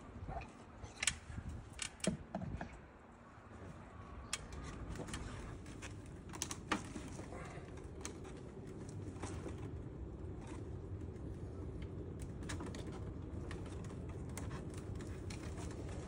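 Scattered light clicks and taps of hands handling the plastic casing of an air conditioner's indoor unit, several in the first few seconds and a few more later, over a steady low hum that sets in about four seconds in.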